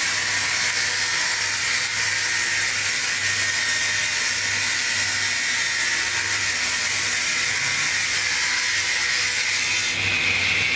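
Multi-blade circular rip saw running and cutting timber fed through its rollers: a steady high whine of the blades over a constant low motor hum. The whine brightens and rises a little near the end.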